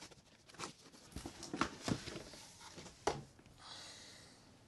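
Cardboard box flaps being opened and handled: scattered light rustles and small knocks, a sharper knock about three seconds in, then a soft sliding rustle as a hand reaches into the box.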